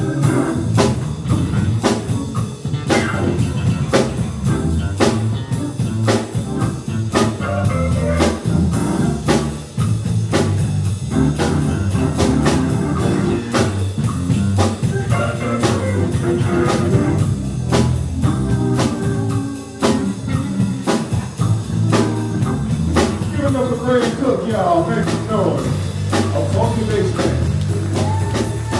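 Live band playing an instrumental blues-jazz number, with a drum kit keeping a steady beat under bass and guitar.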